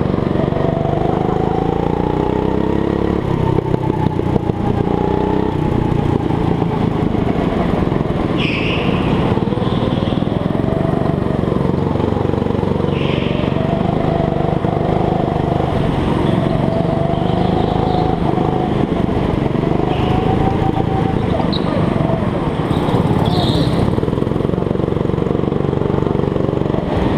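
Go-kart engine running hard, its note rising and falling as the throttle opens and closes through the corners, with brief high squeals from the tyres now and then.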